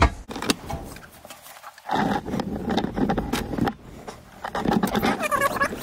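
Scraping and irregular clicking as a motorcycle shock absorber's steel coil spring is handled and worked with a small metal tool, with a sharp click at the very start.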